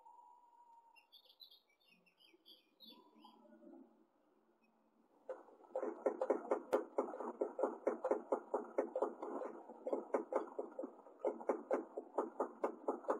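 Faint high chirps from the nest for the first few seconds, then, about five seconds in, a loud run of soft muffled thumps, about five a second, with a short break near the end.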